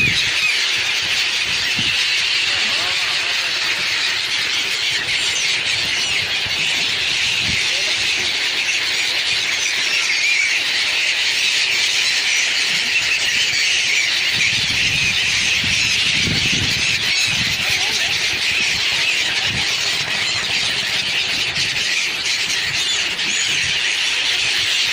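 A dense chorus of many small birds chirping continuously, their calls overlapping into a steady high-pitched chatter.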